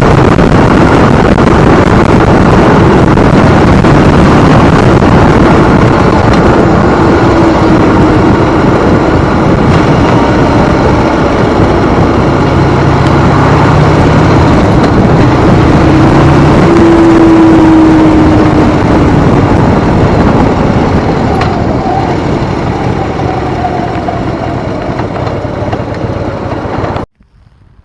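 Harley-Davidson motorcycle riding along, its engine and rushing wind loud on the microphone. The sound eases off over the last several seconds, then cuts off abruptly near the end.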